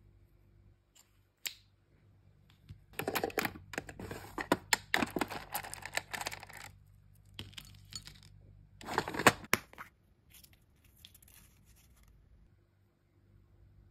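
Small plastic beads and charms clattering and clicking as a hand rummages through a clear plastic storage drawer. The rummaging comes in two bursts, a longer one about three seconds in and a shorter one near nine seconds, with a single sharp click shortly before.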